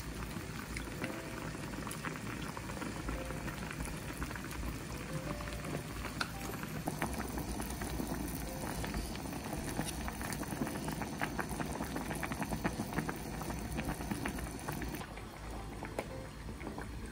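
A pot of shabu-shabu broth bubbling at a steady boil on a portable gas stove, with scattered light clicks of metal tongs and utensils as bean sprouts go into the pot.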